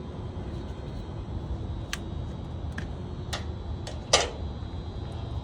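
Hand tools and metal parts being worked on a chiller compressor: a few light scattered clicks and one sharp, louder metallic clack about four seconds in, over a steady low mechanical hum.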